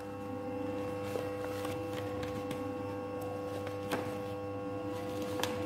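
A steady electrical hum with a few faint clicks and taps as a book is handled on the desk.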